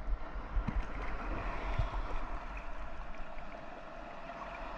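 Shallow sea water sloshing and gurgling steadily, with a couple of soft knocks in the first two seconds.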